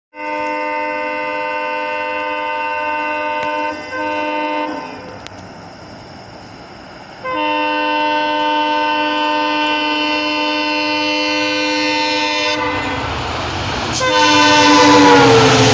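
Indian Railways locomotive horn blowing long multi-tone blasts as a train approaches at speed: one of about four seconds with a brief break, a second of about five seconds, and a third whose pitch drops as the locomotive passes close by. The rumble of the train builds under the last blast.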